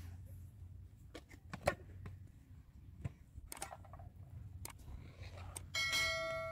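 A few light clicks and knocks of dishes being handled, then near the end a metal dish is struck and rings like a small bell, fading over about a second and a half.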